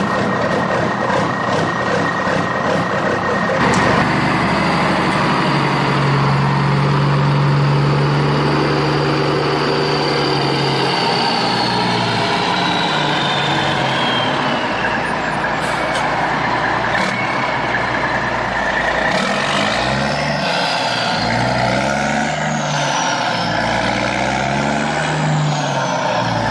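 Heavy truck engine sound effect running steadily, its revs rising and falling several times in the second half.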